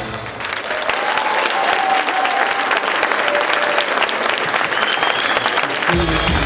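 Audience applauding, with a few cheers and shouts over the clapping, as the dance music cuts off.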